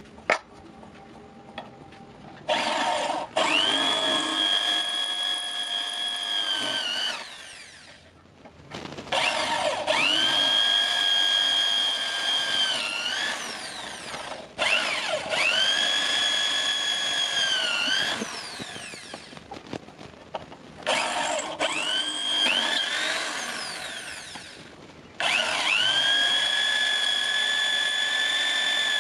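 Electric drill with a twist bit boring through a flat metal plate, in five runs of several seconds each. The motor's whine rises as it spins up and sags in pitch near the end of each run. There is a sharp click just at the start.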